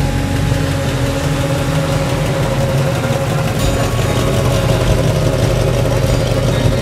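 Chevy II Nova's engine and exhaust running at a low, steady idle as the car rolls slowly past close by.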